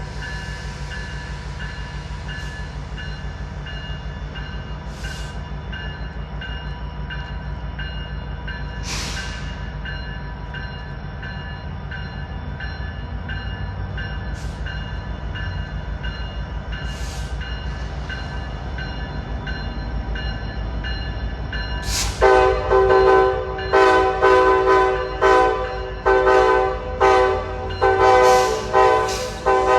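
A Norfolk Southern diesel freight locomotive rumbles steadily. About 22 seconds in, its multi-chime air horn starts a rapid series of about ten short blasts, played as a horn show.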